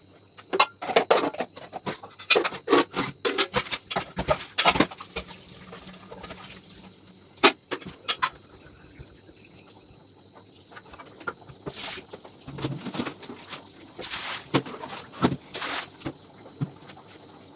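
Dishes and cooking utensils clattering and knocking together while being hand-washed, with water splashing in between, in two busy stretches with a lull around the middle.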